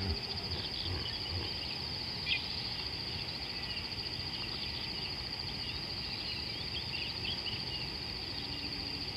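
A steady high-pitched insect trill with many short bird chirps scattered through it, over a low rumble.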